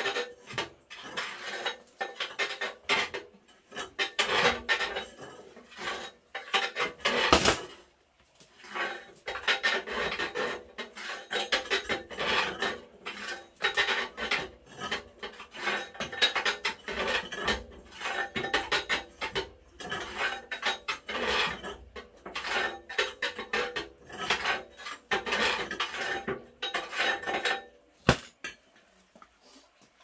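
Metal poker scraping and raking ash out of a steel wood stove's ash pit into a bucket: many rough scraping strokes with clinks of metal, a brief pause about a quarter of the way in, ending near the end with a single sharp knock.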